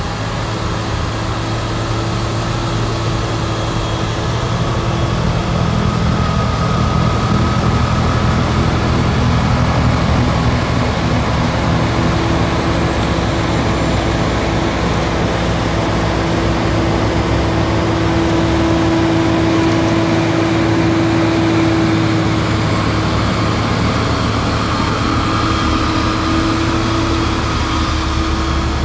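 Industrial snow blower on a wheel loader running at work, its heavy diesel engine and blower drum making a loud, steady drone as it blows snow into a dump truck, with a held hum over the noise of the thrown snow.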